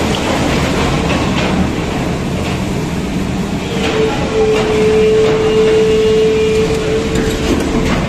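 Caterpillar hydraulic excavator working a tunnel rock face, its engine running under load with scattered knocks of breaking and falling rock. A steady whine grows stronger about four seconds in.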